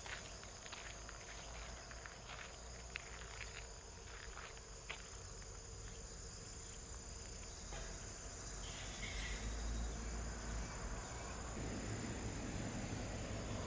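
Outdoor ambience of insects, likely crickets, chirring steadily, with footsteps crunching during the first few seconds; a low rumble rises over the second half.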